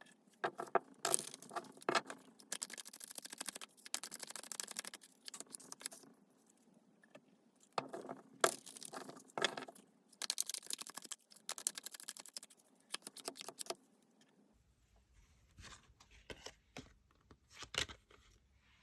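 Tarot cards being shuffled and handled: repeated bursts of papery rustling and card slaps with sharp clicks, thinning to a few faint taps in the last few seconds.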